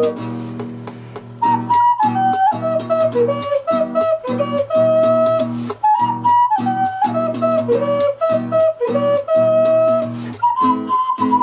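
Wooden duet (double-chambered) ocarina playing a quick, bouncy melody over a backing track with a steady beat and bass. The melody drops back for the first second or so and comes in again about a second and a half in.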